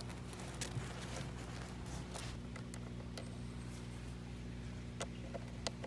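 Scattered light clicks and scrapes of a screwdriver tightening a metal worm-drive hose clamp on corrugated pond hose, over a steady low hum.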